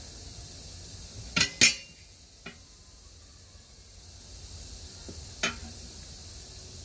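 Steel tire spoons clanking against the metal rim of a 19.5-inch truck wheel as the tire bead is pried over it by hand. There are two sharp clanks close together about a second and a half in, a faint knock just after, and another clank about five and a half seconds in.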